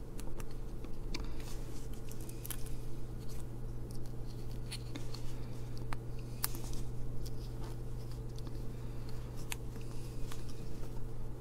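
Scattered small clicks and taps of small push-button switches being handled and pushed into a circuit board, over a steady low hum.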